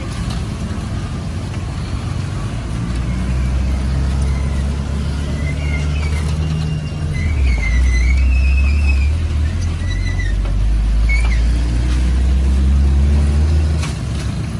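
Low, steady rumble of a motor vehicle's engine running close by. It grows louder from about three seconds in and drops away near the end, with faint short high chirps over it.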